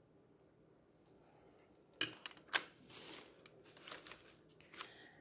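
Faint handling sounds: a few light clicks and rustles starting about two seconds in, as a coloured pencil is put down and the next one is taken from the pencil tin.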